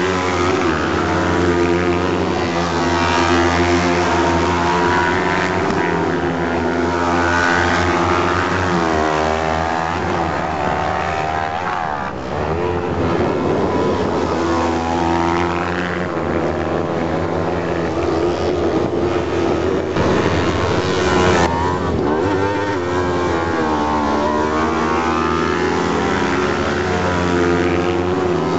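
Several sprint car buggies racing on a dirt track, their engines revving hard, rising and falling in pitch as they accelerate out of a bend and pass one after another.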